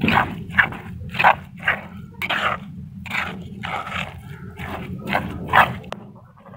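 A hand kneading a wet paste of pounded herbs and yogurt in a stone bowl, in rhythmic strokes about two to three a second, over a steady low hum; the strokes stop near the end.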